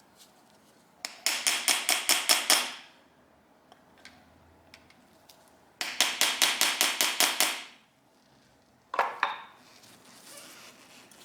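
Two quick runs of light hammer taps, about six a second, on a seized screw in an old motorcycle carburetor, giving it vibration to loosen it. A single metallic clink with a short ring follows near the end.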